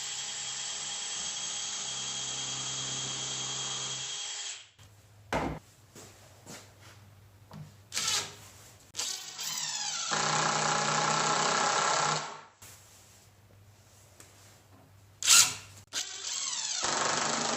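Power drill running in three spells of a few seconds each. The second spell rises in pitch as it spins up. Short knocks and clicks sound between the runs.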